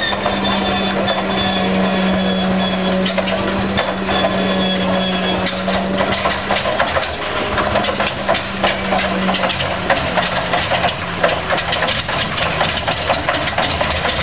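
Starting a B-24 Liberator's Pratt & Whitney R-1830 Twin Wasp radial engine on a test stand. A steady starter whine with a high whistle runs for the first several seconds, then uneven firing beats grow stronger through the second half as the engine turns over.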